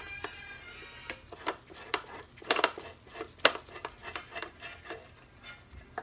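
Phillips screwdriver working the screws out of a 2004 Acura TL's HID ballast and its metal heat shield: irregular small metallic clicks and clinks as the bit turns and catches in the screw heads.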